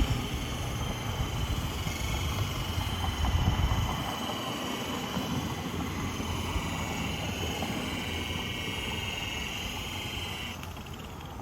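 Power polisher spinning an airway buffing wheel against the boat's metal, a steady motor whine over a rough low rumble that cuts off suddenly near the end.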